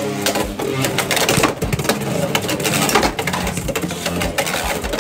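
Two Beyblade X spinning tops battling in a plastic stadium: rapid metal clacks and rattles as they strike each other and the stadium wall.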